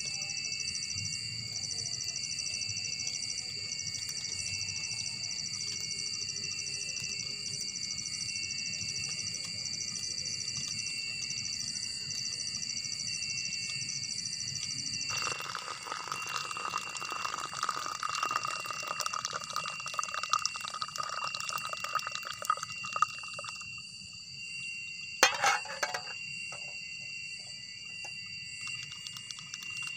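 Night-time chorus of insects, steady high-pitched pulsing trills. About halfway through a lower, rougher buzzing joins for several seconds, and near the end there is one short, loud sound.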